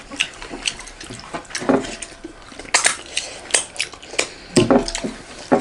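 Fingers scraping and clicking against brass plates as food is mixed and gathered by hand, with wet smacking and finger-licking sounds of eating. Scattered short clicks and scrapes, a few sharper ones in the second half.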